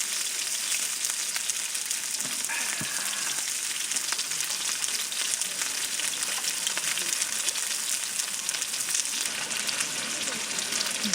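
Beef sizzling as it cooks over high heat: a steady hiss dotted with fine crackles and pops of fat.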